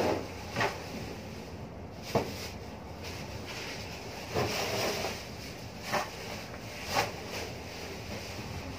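Wind buffeting the microphone over a steady low rumble, with about five short bumps or knocks scattered through.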